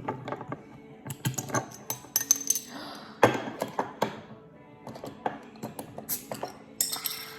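Background music with repeated sharp clinks of glasses and cups being tapped together in toasts.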